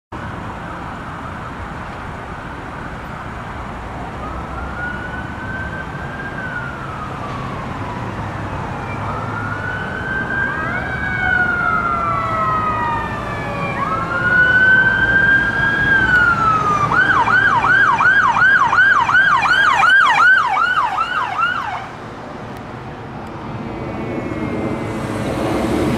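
Electronic emergency-vehicle siren approaching: a slow wail rising and falling and growing louder, then switching to a fast yelp of about three sweeps a second, which cuts off suddenly about two-thirds of the way through. After that a low engine rumble builds near the end.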